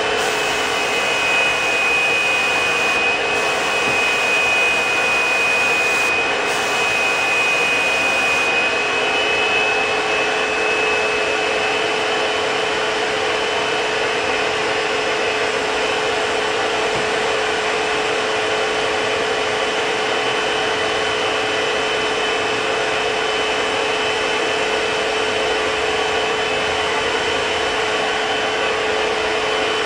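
Fuji Semi-PRO 2 HVLP spray system's two-stage turbine running steadily, a whine with a rush of air, with a higher whistle over the first ten seconds or so.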